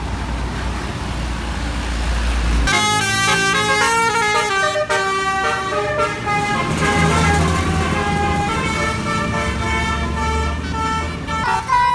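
A bus engine running low, then from nearly three seconds in a telolet horn, the multi-tone musical air horn of an Indonesian bus, plays a melody of notes that step up and down until the end.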